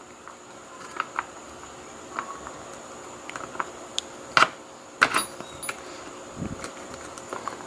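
Light metal clicks and taps from handling a euro lock cylinder and small tools while working at its retaining clip, scattered and irregular. Two louder clicks come about four and a half and five seconds in.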